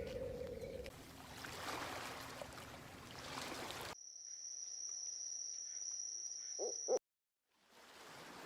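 Spliced wildlife recordings with an owl hooting: a noisy outdoor haze, then a cut to a steady high-pitched whine with two short low owl hoots close together, followed by a brief dropout to silence.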